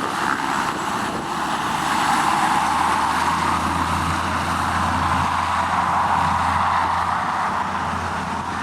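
Aircraft engine running steadily, with a low hum that comes in about two and a half seconds in.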